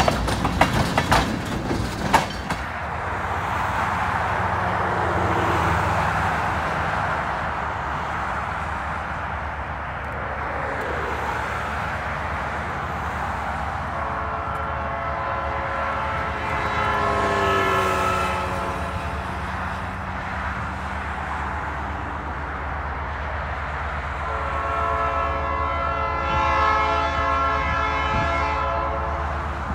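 Tank cars of a freight train clattering briefly over the rails, then a diesel locomotive's multi-tone air horn sounding as it approaches a grade crossing: one long blast about halfway through and another near the end, over a low engine rumble.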